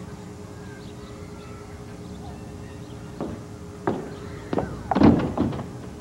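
Steady low hum, then from about three seconds in a few separate thumps, the loudest cluster about five seconds in: a door and footsteps as someone comes out onto stoop steps.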